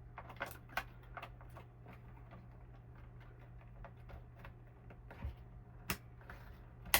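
Small plastic clicks and taps of DDR3 RAM sticks being pressed into the motherboard's memory slots, with two sharper clicks near the end as the slot's retention clips snap shut.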